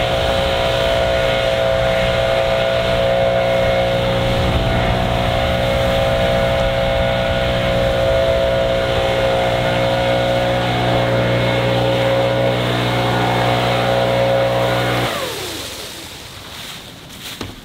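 Leaf blower running at a steady speed, then shut off about fifteen seconds in, its pitch falling as it winds down.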